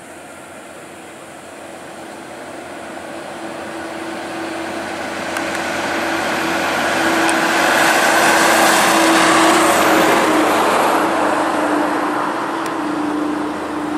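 Volvo FH semi-trailer truck approaching and passing close by, diesel engine and tyre noise building to a peak about nine seconds in. The engine note drops slightly as it goes by, then the sound eases off.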